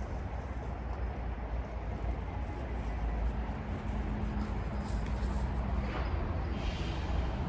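Steady low outdoor rumble, with a faint steady hum from about three to six seconds in.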